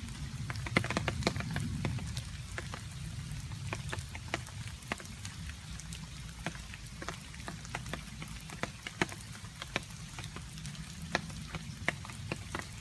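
Rain with water drops dripping: irregular sharp drip ticks over a steady low rumble of rain, the drips coming thickest in the first couple of seconds.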